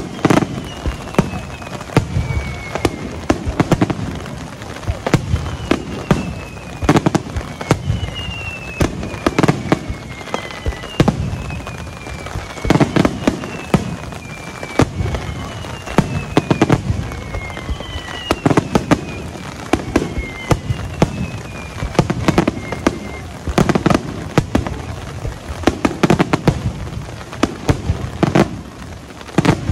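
Fireworks display: aerial shells bursting in rapid succession, deep booms mixed with many quicker bangs, under a series of whistles that each fall in pitch, one every second or two.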